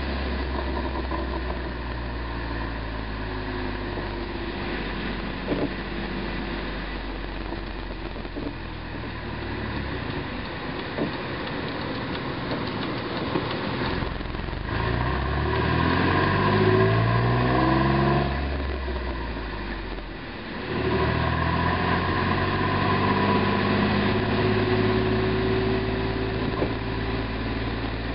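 Jeep Wrangler JK's 3.8-litre V6 running through an MBRP aftermarket exhaust. The drone rises in pitch as the engine revs up about halfway through, falls back, then runs steady, with a few faint short pops from the exhaust.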